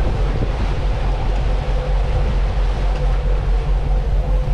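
Sportfishing boat's inboard engines running steadily underway while trolling, a constant low drone with water rushing in the wake.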